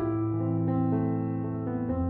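Background music: soft piano or electric-piano chords, with a chord change about a third of the way in and again near the end.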